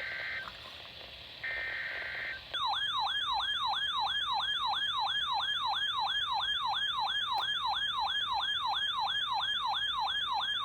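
Weather radio alert: two short bursts of the digital SAME header tones, then about two and a half seconds in a receiver's alert alarm starts, a fast repeating falling-pitch siren at about three sweeps a second, signalling that a new warning is coming in.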